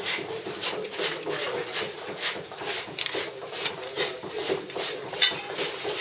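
Steel drag scraping across soft Bath stone in quick back-and-forth strokes, about three a second, dragging the surface down to the marked line of the cavetto.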